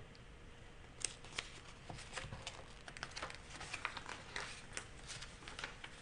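Faint, irregular rustles and light clicks of fingers handling the pages of a book, starting about a second in.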